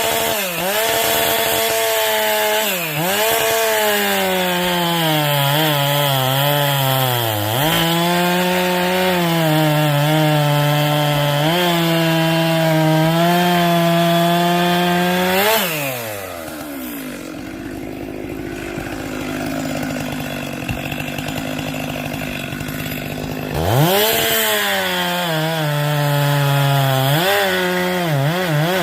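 Chainsaw running at high revs while cutting firewood, its pitch sagging and recovering over and over as the chain bites into the wood. About sixteen seconds in, the engine drops back to a quieter idle for several seconds, then revs up sharply again.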